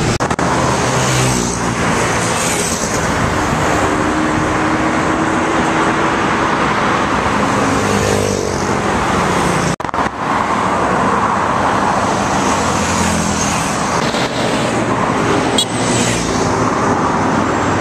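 Steady road traffic noise with motorcycles riding past in a roadside motorbike lane. The sound cuts out for an instant about ten seconds in.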